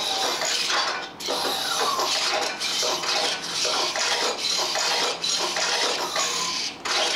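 Servo motors of a Robosen Optimus Prime robot whirring, with short rising and falling whines as it swings its arm through repeated axe-chop moves.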